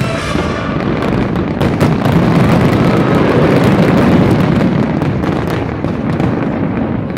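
Aerial fireworks going off in a dense, continuous barrage of rapid bangs and pops, easing slightly near the end.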